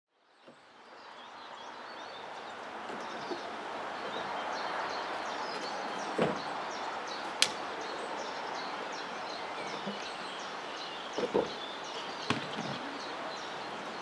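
Outdoor ambience: a steady rushing background with small birds chirping over and over. A few sharp knocks and clunks of chainsaws being handled on a pickup truck's tailgate cut through it, the loudest a sharp click about seven seconds in. No saw is running.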